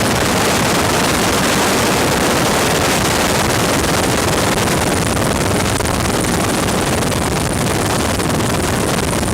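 Steady, loud rushing noise of helicopter flight, with wind on the microphone.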